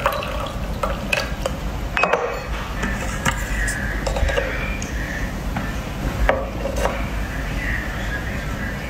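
Tea poured from a small clay teapot into little ceramic cups on a tea tray, with several sharp clinks and taps of the cups and a tea tool against the ceramic.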